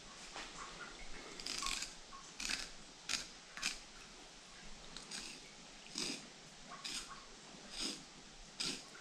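Fillet knife cutting through a northern pike's flesh along the Y bones: a series of short, irregular slicing strokes, roughly one a second.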